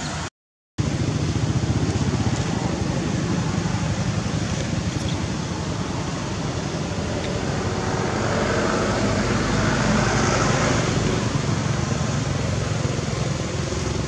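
Steady rumbling background noise that swells a little from about eight to eleven seconds in, broken by a half-second dropout to silence just after the start.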